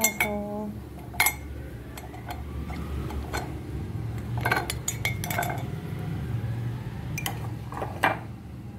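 Metal spoon clinking and scraping against a ceramic mug as thick whipped coffee is knocked off it, a few light clinks spread through, over a low steady hum.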